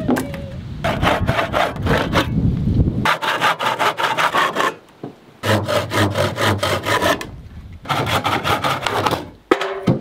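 Hand saw cutting through a wooden board, in four runs of quick, even back-and-forth strokes with short pauses between them.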